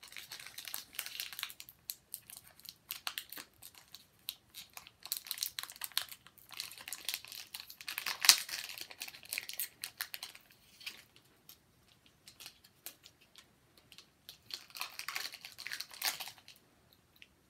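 Foil wrapper of a Pokémon booster pack crinkling and tearing as it is pulled open by hand, in irregular bursts of crackle. The loudest crackle comes about eight seconds in, and the rustling eases off for a few seconds before a last flurry near the end.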